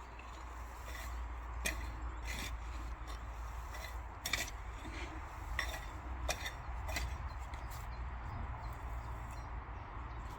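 Potato digging with a garden fork: a string of short scrapes and knocks from the fork and potatoes in the soil, roughly one every second.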